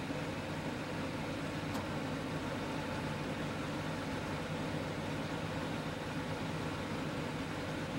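A vehicle engine idling steadily, a low even hum under a constant hiss.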